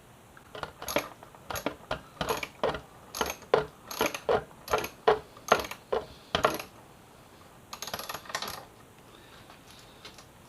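Ratchet wrench clicking on the mirror mounting bolts: a steady run of sharp metallic clicks, about two a second, then a short quick cluster of clicks near the end.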